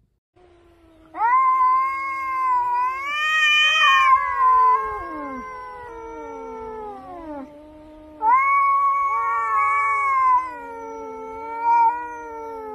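Cats yowling at each other in a face-off: long, drawn-out caterwauls that waver and slide in pitch. A first wailing call starts about a second in, and a second one starts about eight seconds in. This is the warning yowl cats give when squaring up to a rival.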